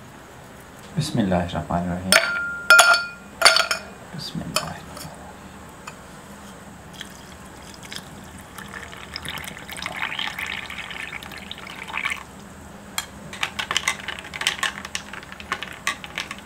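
A few sharp, ringing glass clinks early on. Then water is poured into a glass of ice and grapefruit pulp, a steady splashing hiss for about three seconds. Near the end a metal spoon stirs the ice cubes, clinking rapidly against the glass.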